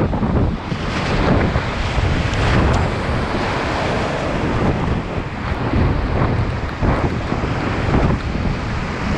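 Whitewater rapid rushing loudly all around a kayak running through it, with water repeatedly splashing against the boat and over the microphone in surges.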